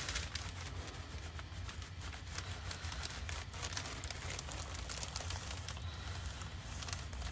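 Clothes iron sliding over parchment paper laid on burlap, a faint scratchy rustle of many small irregular ticks, with a steady low hum underneath.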